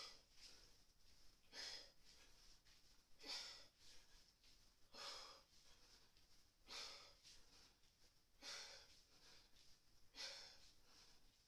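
A woman breathing hard during kettlebell swings: seven faint, short, breathy exhales, about one every second and three quarters, each timed with a swing.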